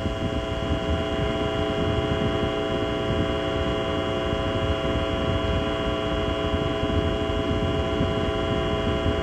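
Saturn V launch rumble, a steady low roar, with a hum of several held tones over it.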